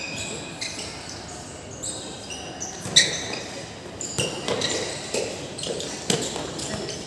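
Shoe soles squeaking in short chirps on a hard court floor, with a ball being struck: a sharp thud about three seconds in, the loudest sound here, and another about six seconds in.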